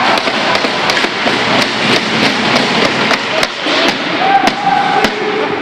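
Ice hockey play on a rink: many sharp knocks of sticks and puck striking the ice and boards, over a steady noisy haze, with a brief shout about four and a half seconds in.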